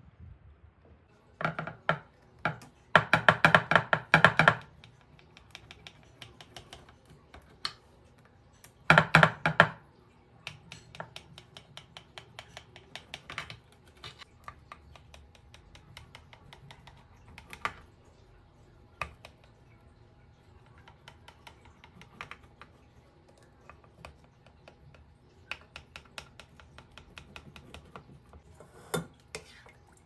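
Knife slicing a baked semolina cake in a glass baking dish: runs of rapid clicks and taps of the blade on the glass and crust. The loudest runs come about two to four seconds in and again around nine seconds, with scattered single taps after.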